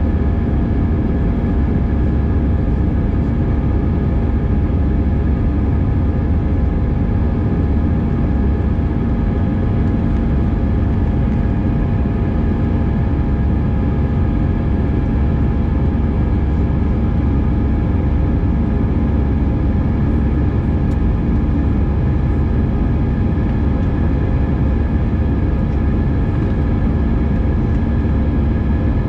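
Steady cabin noise inside an Airbus A320 in flight: a deep rumble of engines and airflow with a constant hum of several held tones.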